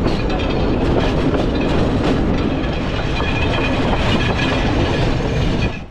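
Sri Lankan passenger train carriage running along the track, heard from its open window: a loud, steady rumble of wheels on rail with clickety-clack over the rail joints.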